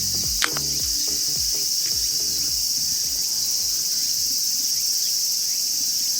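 Steady, shrill chorus of insects, like crickets, with no break. A short click comes about half a second in.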